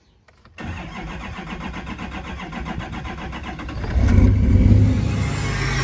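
Duramax diesel engine cranking on the starter for about three seconds, then firing about four seconds in and settling into a steady idle, heard from inside the cab. This is a restart after the fuel lines were bled again following an AirDog lift pump install, and this time the engine catches.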